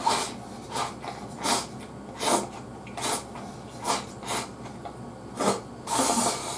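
A person slurping and sucking in mapo glass noodles from a bowl held to the mouth: a string of short slurps about one every three-quarters of a second, with a longer, louder slurp near the end.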